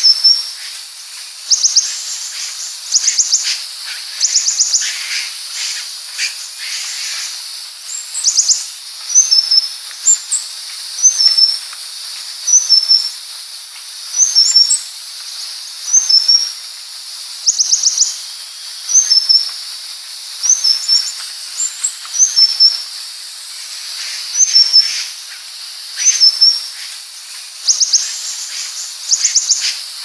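Purple-throated sunbird calling: short, high, slightly falling notes repeated roughly once a second, mixed with bursts of rapid high chittering.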